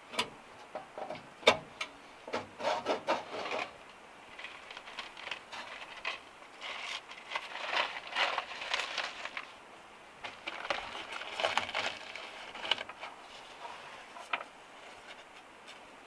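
Paper being torn and crumpled in several bursts and pushed into a small metal wood stove as kindling, with a few knocks before it and a sharp clack about a second and a half in.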